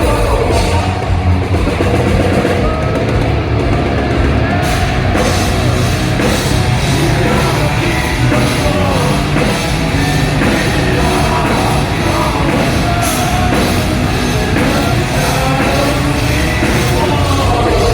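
Metal band playing live, loud and steady: distorted guitars, bass and a drum kit, with a sung vocal line.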